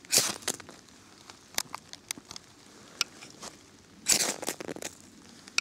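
A ferrocerium rod (firesteel) scraped hard with the spine of a Muela Kodiak knife: two quick rasping strikes, one right at the start and another about four seconds in, with a few light clicks and taps between them.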